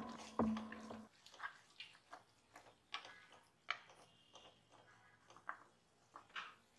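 Background music with a drum beat, ending about a second in. Then faint, irregular clicks and scrapes of a spatula stirring thick meat curry in a metal pan.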